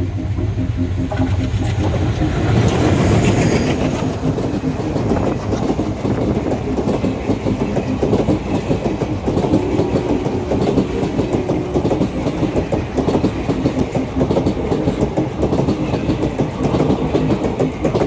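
Passenger train passing close by, its wheels clattering rapidly and continuously over the rails. It is loudest about three seconds in, then keeps up a steady dense rattle as the coaches go by.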